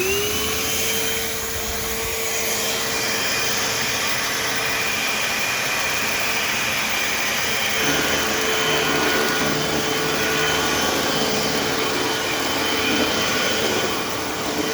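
Eureka AirSpeed Rewind AS1101 upright vacuum cleaner just switched on: its motor whine rises and settles to a steady pitch within the first second, then runs steadily over a loud rush of air. A lower hum joins about eight seconds in.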